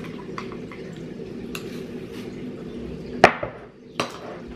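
Metal spoon working sugar in a ceramic mug: a few light scrapes and ticks, then two sharp knocks of the spoon against the mug about three and four seconds in, over a steady low hum.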